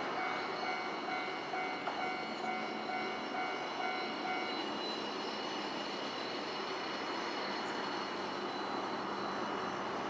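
Level-crossing warning bell ringing in a fast repeating tone, stopping about four and a half seconds in. The Kintetsu Ikoma Cable Line funicular car runs on its rails across the crossing throughout.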